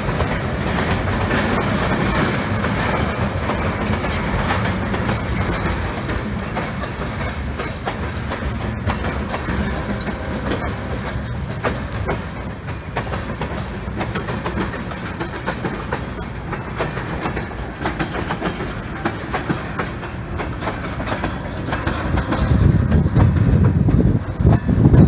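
Freight train's tank cars and covered hoppers rolling past, steel wheels clicking over rail joints in a steady clatter. The sound grows louder near the end.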